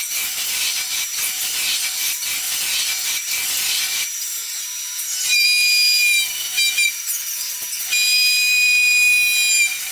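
CNC router spindles milling a foam block: a dense hiss of the cutters chewing through the foam for about four seconds, then quieter, with a high steady whine that comes in twice in the second half.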